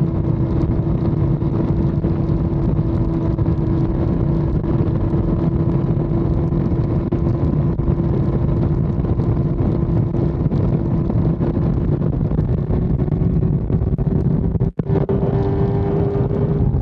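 Sport motorcycle at highway speed, its engine holding a steady high note under heavy wind and road rush on the bike-mounted camera. The engine pitch creeps up slightly near the end. The sound cuts out for an instant about three-quarters of the way through.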